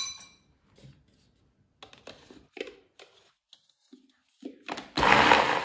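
A metal spoon clinks once against a glass bowl with a short ringing tone, then the plastic lid of a Girmi electric food chopper clicks as it is fitted. About five seconds in, the chopper's motor runs in a short loud burst, grinding walnuts, and cuts off suddenly.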